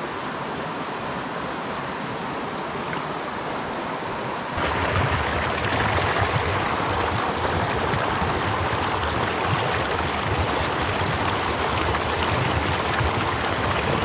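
Mountain stream water running over a shallow riffle, a steady rushing wash that steps up suddenly in loudness about four and a half seconds in.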